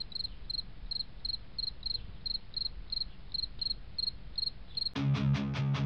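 Regular cricket-like chirping, about three short high chirps a second, over a low rumble. About five seconds in, rock music with strummed electric guitar comes in and drowns it out.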